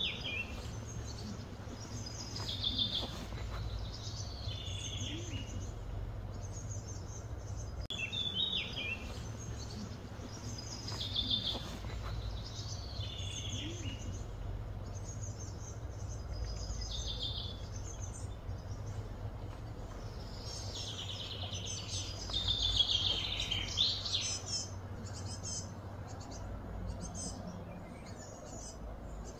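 Birds singing in short, repeated chirping phrases that fall in pitch, busiest about three-quarters of the way through, over a steady low hum.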